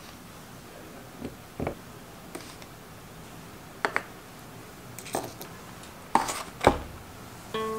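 Light knocks and taps as food containers, a small spice jar and a cardboard box are set down one by one on a wooden cutting board, about seven in all, spaced irregularly, the two loudest near the end.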